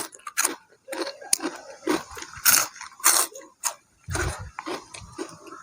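A person chewing and crunching food close to the microphone, with irregular crisp crackles and wet mouth sounds. About four seconds in, a low rumble of wind on the microphone joins in.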